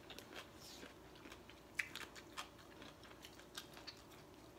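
Quiet eating sounds: scattered light clicks and taps of a fork and spoon on plates, with some chewing, over a low steady hum.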